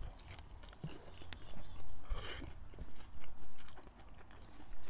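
Biting into and chewing a hard-shell taco, with a few sharp crunches of the fried corn shell followed by softer chewing.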